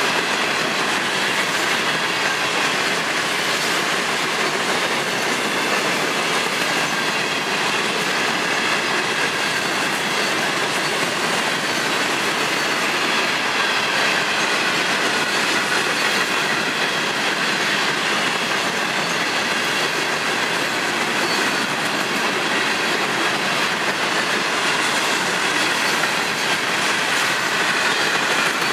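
Florida East Coast Railway freight train's hopper cars rolling steadily past, a continuous rumble and clatter of steel wheels on the rails, with a faint high-pitched squeal of wheels running through.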